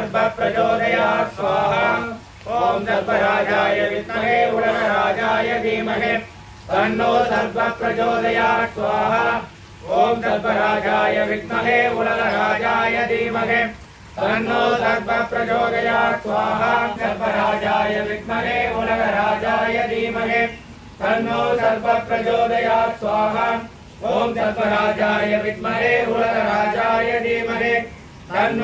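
Male voices chanting mantras together in a steady, flowing recitation, broken by short pauses for breath every few seconds.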